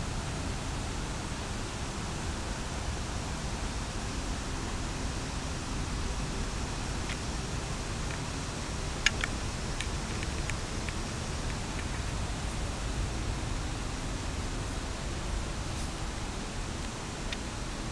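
Steady rushing background noise with no speech, and a few small clicks partway through, the sharpest about nine seconds in.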